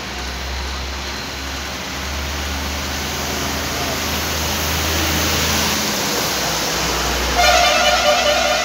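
Steady traffic noise, with a vehicle horn starting near the end and held as one long blast.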